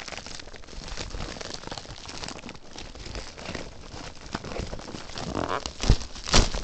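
Packaging crinkling and rustling as it is handled and pulled open, with two loud knocks near the end.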